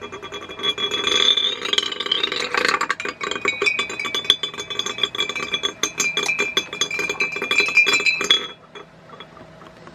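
Magnetic stir bar clattering against the bottom of a glass jar of water spinning on a Corning PC-620 stirrer, a fast stream of glassy clinks and rattles with steady high tones over it. It starts about a second in and stops abruptly near the end.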